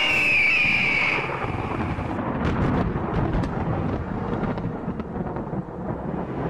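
Cartoon storm ambience: a low, rolling thunder rumble. It opens with a brief high tone that falls slightly over the first second.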